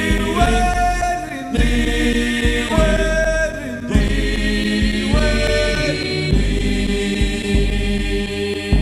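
Stage ensemble singing together in chorus over instrumental accompaniment with a strong low beat.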